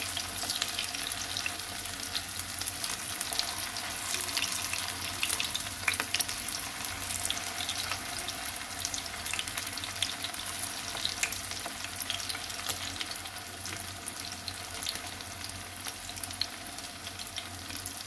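Potato-and-paneer tikkis shallow-frying in hot oil in a pan: a steady sizzle dense with small spitting crackles. A sharper tick comes about six seconds in.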